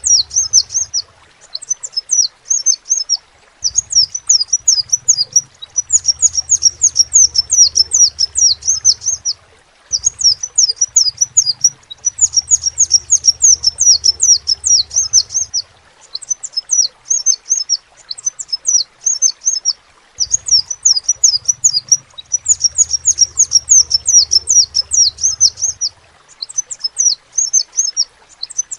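Crimson sunbird (kolibri sepah raja) singing: phrases of rapid, high-pitched twittering notes, each one to four seconds long, with short pauses between.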